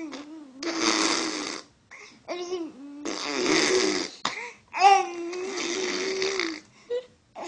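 A baby babbling and blowing raspberries: short high-pitched coos between three longer voiced, buzzing lip raspberries.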